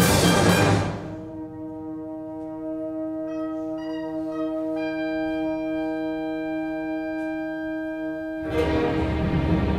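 Orchestra playing: a loud full-orchestra passage breaks off about a second in to a softer held chord, with a few short notes joining it a few seconds later. The full orchestra comes back loud near the end.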